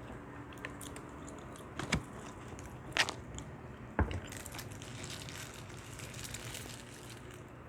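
Close-up eating sounds: biting and chewing fast food, with three sharp clicks about a second apart, then soft crackly rustling.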